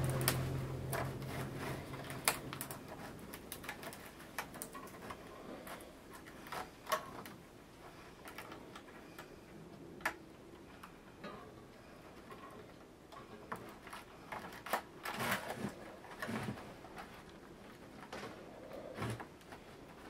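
Thin bamboo strips of a plaited winnowing basket clicking and crackling irregularly as they are bent and tucked in by hand. A low hum fades out in the first couple of seconds.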